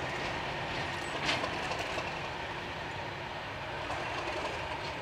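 Passenger train hauled by English Electric diesel locomotives pulling away: a steady rumble of the engines and wheels on the rails, easing off slightly, with a short sharper noise about a second in.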